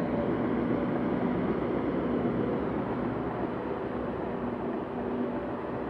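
Heavy diesel construction machinery, such as a bulldozer or compactor, running steadily while levelling and compacting earth fill. The engine hum grows slightly quieter toward the end.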